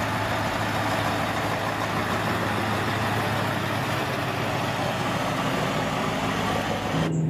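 Scania tractor unit driving by close, its diesel engine running as a steady low hum under an even road and wind noise.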